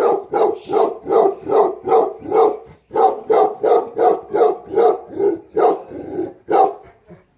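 Tibetan mastiff barking in a long, steady series, about two to three barks a second, with a short break around three seconds in; the barking stops near the end.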